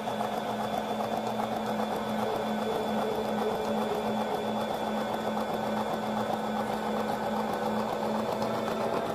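Cuisinart Express Slicer, Shredder and Spiralizer's electric motor running with a steady hum as it spiralizes a zucchini pressed down the upright feed tube.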